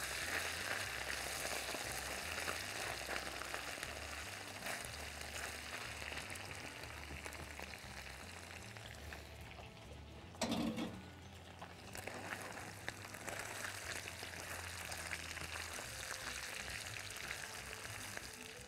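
Chunks of camel meat browning in a wok, a steady crackling sizzle that eases off a little toward the middle. A brief louder knock about ten seconds in.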